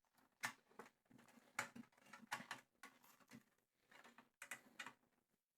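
Faint, irregular clicks and light taps, about a dozen, of hands and tools working on an amplifier's parts and cables.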